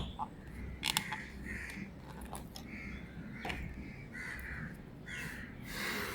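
Crows cawing, a string of short calls, with a few sharp clicks in between.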